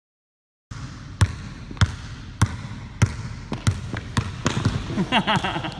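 Basketball being dribbled on a hardwood gym floor: steady sharp bounces a little under two a second, starting about a second in after a short silence.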